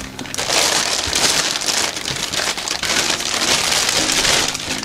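Packaging being handled while unboxing a monitor: a continuous, dense rustling and crinkling that builds about half a second in and eases off near the end.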